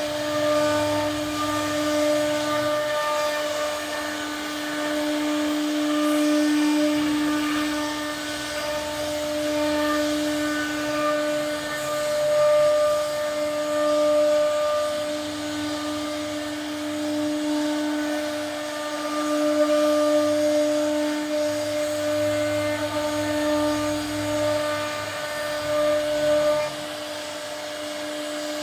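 CNC router spindle whining steadily at one pitch as it cuts a wooden door, its loudness swelling and easing as the cut goes on.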